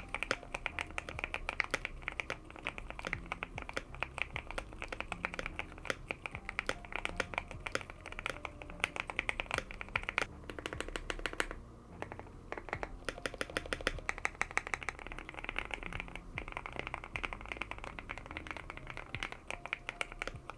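Continuous fast typing on an Epomaker TK68 mechanical keyboard fitted with Gateron Milky Yellow linear switches, modded with tape and memory foam for a deeper, thocky sound. Dense key clacks with a couple of brief pauses around the middle.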